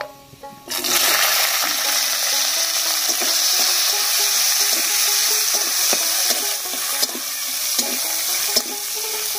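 Chopped green chillies hit hot mustard oil with whole spices in a kadai and start to sizzle suddenly, under a second in, with a loud steady hiss that eases a little near the end. A metal spatula scrapes and taps the pan as the chillies are stirred.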